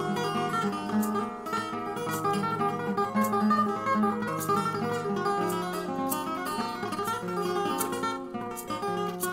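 An acoustic guitar played solo, an instrumental passage of picked and strummed chords with a sharp attack on each stroke.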